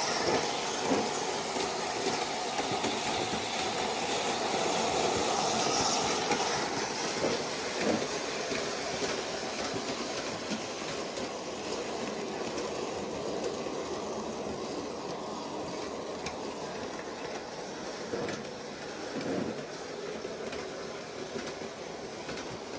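G-scale electric Thomas the Tank Engine model locomotive running around a loop of large-scale track, pulling coaches and trucks. Its motor and gears whir steadily while the wheels clatter over the track, with a few louder clicks. The sound slowly grows fainter toward the end.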